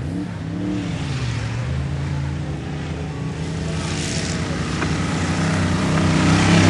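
Engine of an off-road racing vehicle revving, its pitch swinging up and down about a second in, then running hard at a steady pitch and growing louder toward the end.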